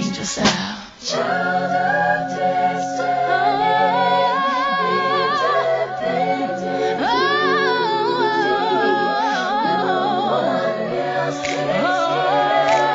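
Background music: layered voices singing long held notes with vibrato and no beat, coming in about a second in as a beat-driven hip-hop track cuts off.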